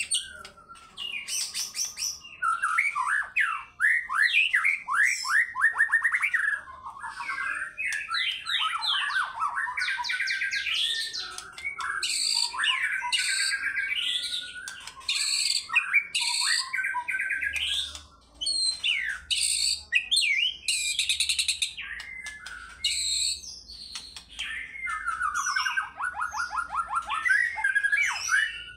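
White-rumped shama (murai batu) in full song: a long, varied string of fast repeated-note runs, trills and high whistles, broken by a few brief pauses.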